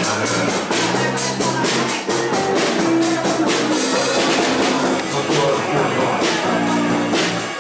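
Live band music with a drum kit beat and a low line of short held notes.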